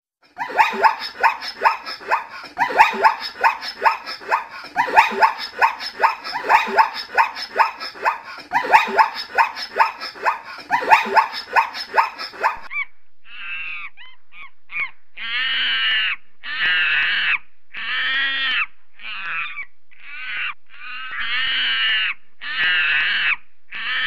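Zebras calling: a fast, rhythmic run of barking yips. About 13 seconds in this gives way to macaque monkeys calling: short, high-pitched calls, roughly one a second.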